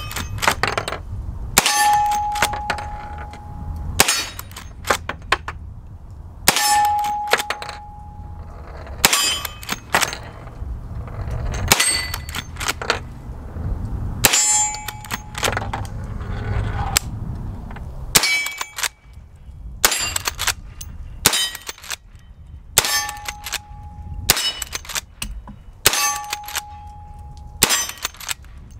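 Marlin 1894 lever-action rifle firing .357 Magnum, about fourteen shots roughly every two seconds. Several shots are followed by about a second of ringing from a struck steel target.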